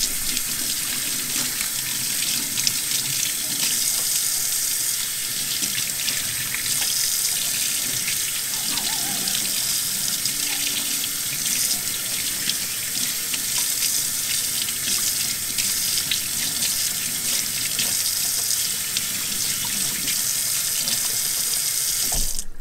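Kitchen tap running into a stainless steel sink, the stream splashing over a skinned quail carcass and the hands rinsing it. The flow is steady and cuts off abruptly at the very end.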